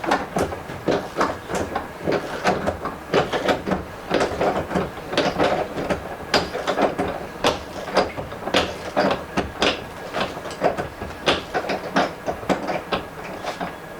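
A quick, irregular run of sharp knocks and taps, about two to three a second, like hammering or tapping on wood or metal.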